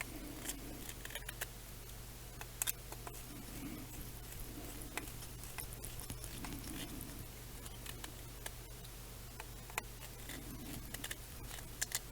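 Scattered light clicks and taps of small screws, hex driver and carbon-fibre frame parts being handled during quadcopter assembly, a couple of sharper clicks among them, over a steady low hum.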